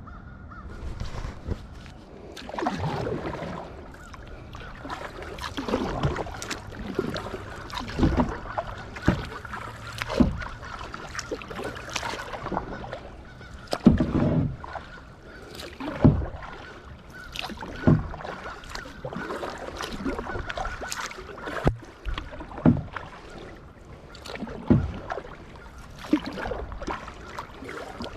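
Kayak paddle strokes dipping and splashing in the water, about one stroke every two seconds.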